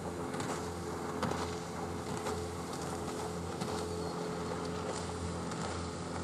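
A steady low engine hum with several held tones, under an even hiss of wind or water noise, with a few faint clicks.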